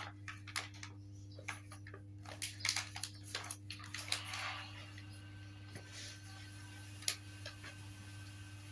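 Light clicks and taps, many in the first half and one sharper click near the end, over a steady low hum.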